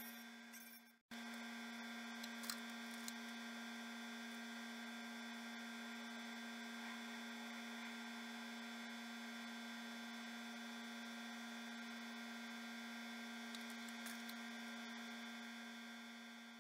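Steady hum of an electric fan, one low tone with many overtones and a light hiss. It drops out for a moment about a second in and begins to fade near the end.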